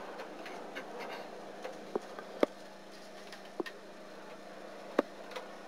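Darts striking a bristle dartboard: sharp single thuds, the last three about a second and a quarter apart, over a faint steady hall hum.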